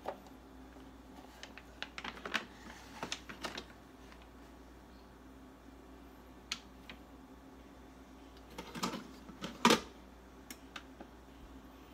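Kitchen handling noises as an instant ramen bowl is opened: scattered small clicks and crinkles of the paper lid and packaging, with a louder sharp knock just under ten seconds in.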